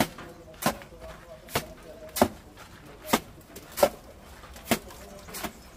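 Wet mortar thrown from a trowel onto a brick wall to build up a rustic render, with the trowel dipping into the mortar tub between throws: eight sharp slaps in under six seconds.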